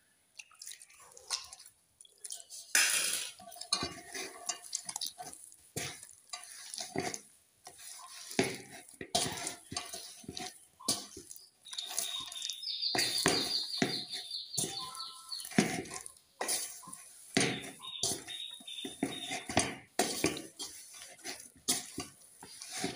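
Hands kneading sticky rice-flour and jaggery dough in an aluminium bowl, with irregular slaps, squelches and knocks of dough and fingers against the metal.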